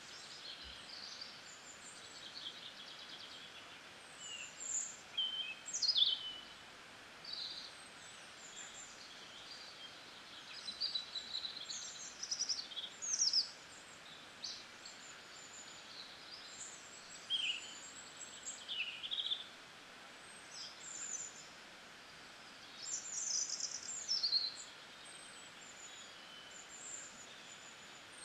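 Small birds chirping and calling: many short, high chirps and quick falling whistles, scattered irregularly, over a faint steady hiss.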